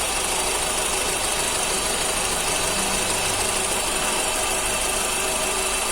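VW EA111 four-cylinder engine idling steadily, heard up close in the engine bay. The engine has an intermittent misfire that comes from poor contact at the ignition coil connector.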